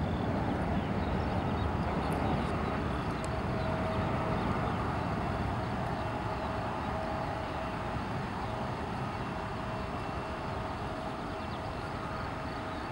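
Distant jet airliner engines running: a steady rumble with a thin steady whine over it, slowly fading.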